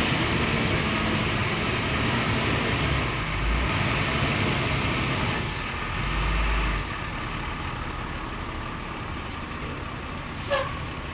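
Heavy truck engine running, a steady rumble that drops in level about seven seconds in, with a short squeak near the end.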